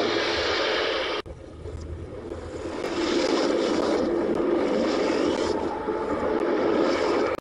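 Sound effect of a spaceship exploding: a first blast that breaks off sharply about a second in, then a rumbling explosion that builds and holds before cutting off suddenly near the end.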